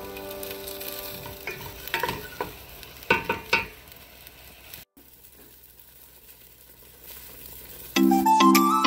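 A wooden spoon scraping and knocking against a pot of chicken and peppers sizzling in sauce. A few sharp clacks come about two to three and a half seconds in, then a quieter sizzle. Soft background music runs under the first second, and loud music starts near the end.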